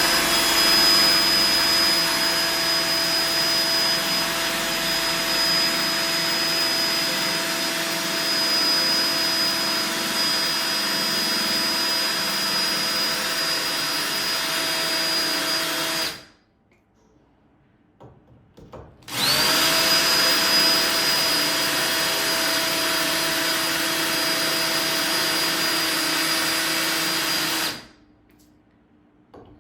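Electric drill spinning a quarter-inch diamond bit into wet porcelain tile, a steady high whine held at even speed. It runs for about sixteen seconds, stops for about three, then runs again for about nine seconds before stopping.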